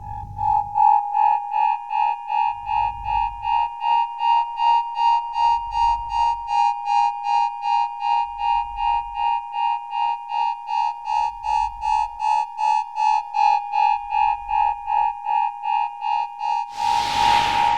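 Synthesized electronic timer effect: a high buzzy tone pulsing about three times a second, with a deep low pulse about every three seconds. A hissing whoosh swells near the end.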